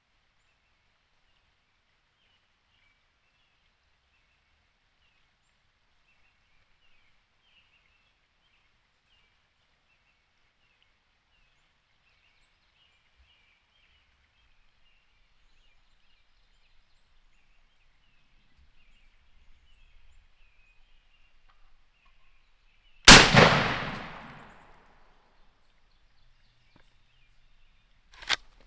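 Faint songbirds chirping, then a single loud shotgun blast that echoes away over about two seconds, the shot at a turkey. About five seconds later comes a second, shorter sharp crack.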